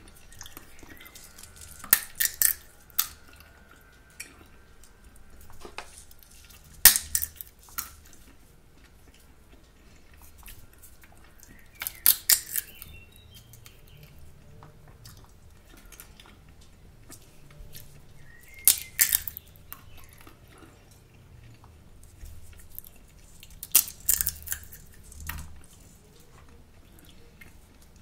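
Shells of roasted, salted in-shell sunflower seeds being cracked open close to the microphone: a few sharp, crisp cracks at a time, in about five bursts roughly five seconds apart.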